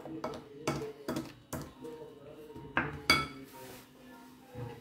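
Utensil scraping and clinking against a ceramic bowl while batter is stirred, with several sharp taps in the first three seconds. The loudest is a ringing knock a little after three seconds, as the utensil is knocked on the bowl and set down; it is quieter after that.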